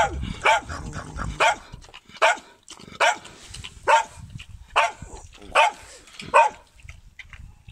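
Yard dog barking repeatedly, single sharp barks about once a second, stopping near the end.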